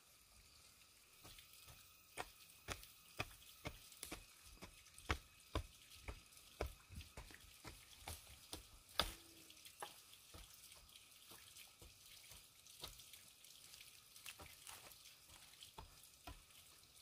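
A run of sharp taps or knocks, about two a second, starting a second or so in and thinning out in the second half, with the loudest one near the middle.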